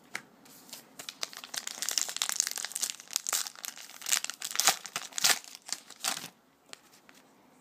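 A trading-card pack wrapper crinkling and tearing as a pack of 2012 Topps Magic football cards is opened by hand, a dense crackle of small sharp snaps lasting about six seconds.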